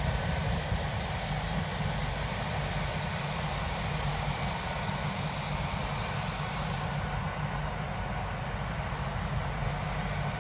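LNER Azuma passenger train passing at speed, a steady rumble of wheels and carriages on the track, with a high hiss that stops about seven seconds in.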